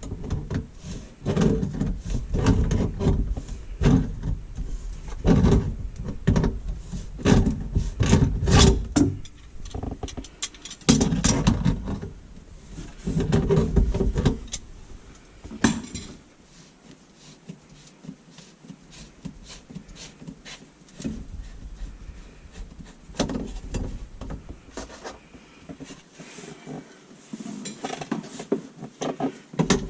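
Irregular knocks, scrapes and rattles of hand tools and plumbing parts being worked under a kitchen sink while an old garbage disposal and its drain trap are taken off. The handling is busy for about the first half, then drops to scattered light clicks and taps.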